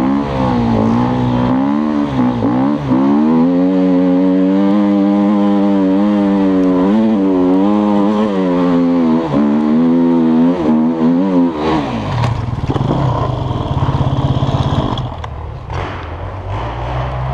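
KTM four-stroke single-cylinder enduro bike engine revving up and down under throttle on a climb through the woods. At about twelve seconds the revving breaks off into a low rumble, and near the end the level falls, with a few knocks and clatters while the bike lies on its side.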